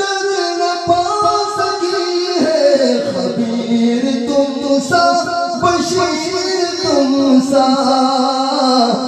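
A man's voice singing an Urdu naat into a microphone, drawing a line out in long held notes that step up and down in pitch.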